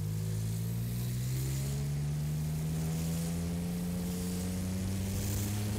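Yamaha Tracer 900 GT's inline three-cylinder engine pulling steadily under way, its pitch rising slowly as the bike gathers speed, with a hiss of wind rush on the helmet-mounted camera.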